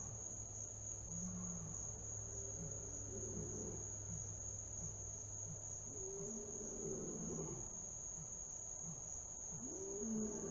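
A big cat's low, rough rumbling breaths that sound somewhere between a snore and a roar, coming about every three to four seconds. Under them runs a steady, high-pitched chorus of crickets.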